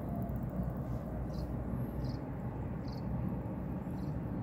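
Outdoor ambience: a steady low rumble with a few faint, short high chirps, about a second and a half in, at two seconds and near three seconds.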